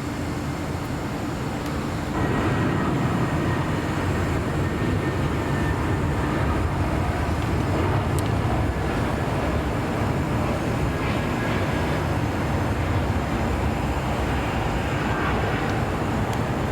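Jet airliner engine noise, a steady rumble that grows suddenly louder about two seconds in and holds.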